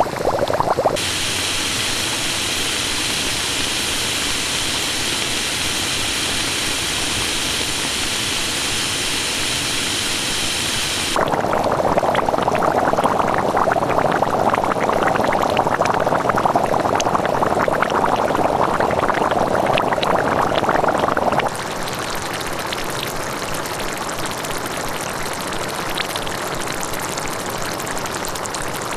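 Volcanic hot springs in three abrupt takes: first a steady hiss for about ten seconds, then a louder bubbling, churning boil with constant small pops, then a softer bubbling with scattered pops.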